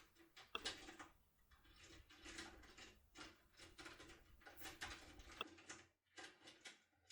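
Faint, irregular metallic clicks and scraping of a power key being worked in a lock cylinder.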